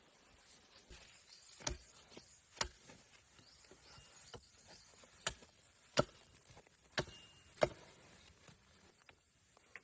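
Six sharp strikes at uneven intervals, each a short, hard chop or knock.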